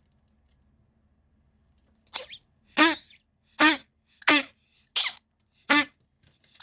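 A ferret coughing in a rapid run of short, harsh hacks, about six of them roughly 0.7 s apart, starting about two seconds in.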